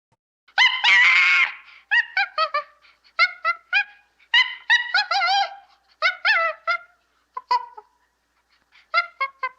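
Birds calling: runs of short, pitched calls in quick succession, with a pause of about a second before a last quick run near the end.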